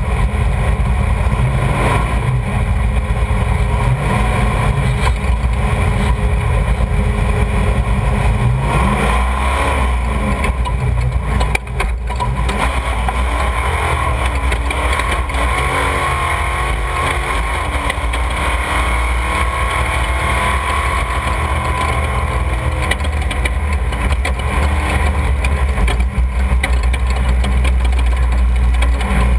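Off-road race vehicle engines running under a heavy low rumble, their pitch rising and falling as they rev, most clearly about nine seconds in and again from about fifteen to twenty seconds.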